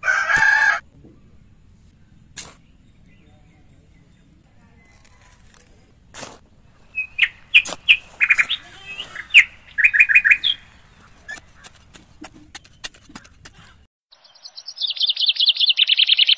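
Small birds chirping in short bursts of high notes, ending in a fast trill of descending chirps. A brief loud burst comes at the very start, and scattered light clicks fall in between.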